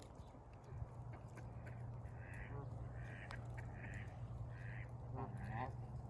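Waterfowl honking: five short, evenly spaced calls, starting about two seconds in, over a steady low hum.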